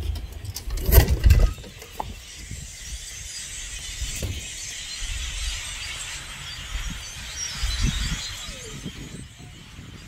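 A huge flock of blackbirds gives a steady, dense din of overlapping calls. A loud low rumble and knock sounds about a second in, and lighter rumbles come later.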